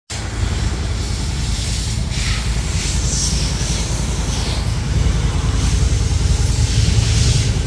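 Can-Am Maverick X3 side-by-side's turbocharged three-cylinder engine running hard with a deep, pulsing exhaust note, with swells of high hissing noise a few times.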